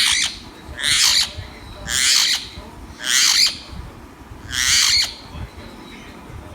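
A green parrot squawking: five harsh calls of about half a second each, roughly a second apart, with a slightly longer pause before the last one.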